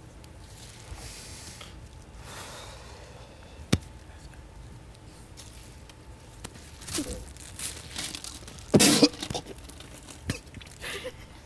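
A person coughing several times in reaction to swallowing a harsh mystery drink of hot sauce, soy sauce or apple cider vinegar, the loudest a double cough near the end. There is one sharp click about a third of the way in.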